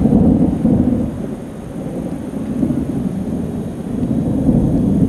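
Loud thunder: a sudden clap that rolls into a long low rumble, which eases off and then swells again about four seconds in.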